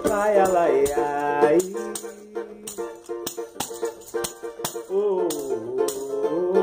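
Music without words: held, gliding melody notes over regular percussion strokes and a shaker rattle.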